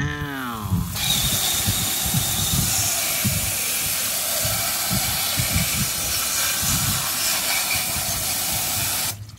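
Handheld garden-hose spray nozzle spraying water onto a small plastic toy train held over a plastic basket: a steady hiss of spray with irregular low splashing thuds. It starts about a second in and cuts off suddenly just before the end.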